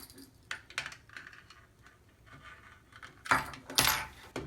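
Small plastic clicks and knocks as a fire alarm unit is handled, with two louder clattering noises about three seconds in.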